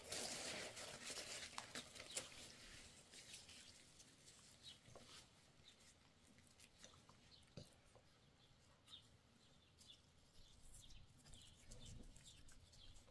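Near silence: a brief rustle at the start, then faint scattered clicks.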